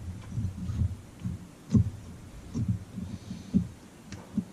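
Soft, irregular low thuds with a few light clicks, from chainsaw engine parts and tools being handled during reassembly.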